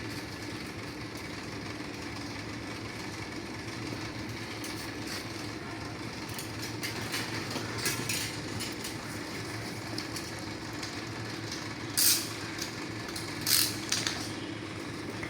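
Steady machinery hum with a constant low drone. Two short, sharp hissing noises come near the end and are the loudest part.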